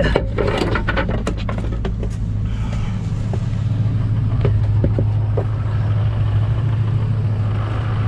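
Truck engine idling steadily, heard from inside the cab. Wooden boards and a plastic snow shovel clatter and knock as they are shifted in the first two seconds, with a few more knocks near the middle.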